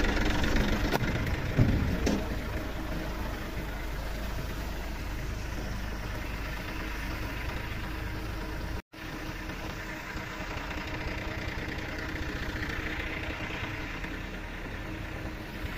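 Eicher tractor's diesel engine idling steadily, a bit louder for the first two seconds. The sound drops out for an instant about nine seconds in, then the same idle carries on.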